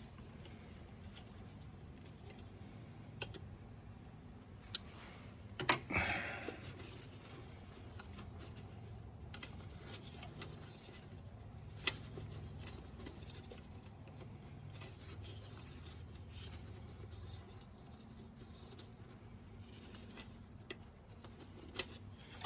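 Scattered clicks and clinks of hand tools and metal engine parts being handled, with a louder scraping clatter about six seconds in and a sharp click near twelve seconds, over a low steady hum.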